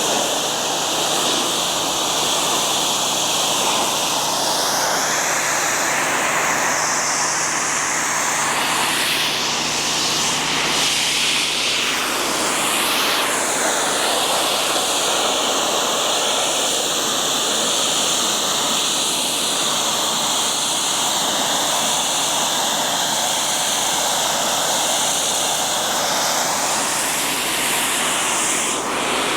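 Pressure washer's high-pressure water jet spraying a retaining wall: a loud, steady hiss whose tone shifts a few times.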